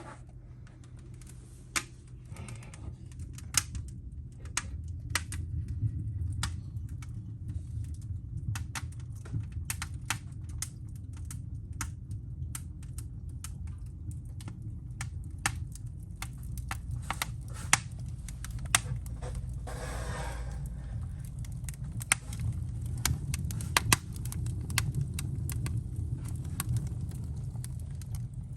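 Wood fire burning in a fireplace: irregular sharp crackles and pops of the burning logs over a steady low rumble of the flames.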